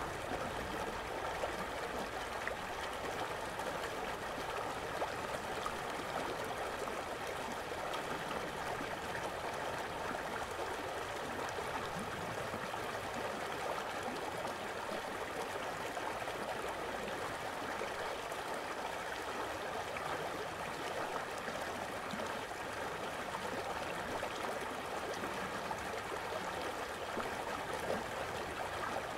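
Steady rushing of running water, a stream pouring over a small weir, with no breaks or changes in level.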